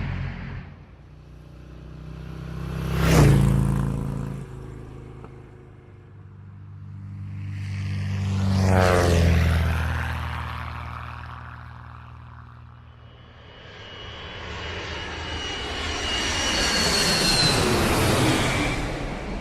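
Three vehicle pass-bys, each swelling up and fading away: a short sharp one about three seconds in, a longer one with a falling pitch about nine seconds in, and a long one near the end with a high whine that drops in pitch.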